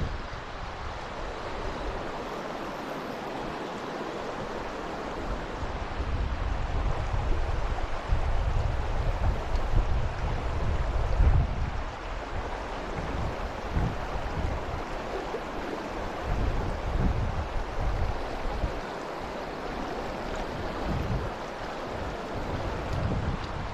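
Steady rush of river water, with gusts of strong wind buffeting the microphone and swelling the low rumble now and then, loudest about halfway through.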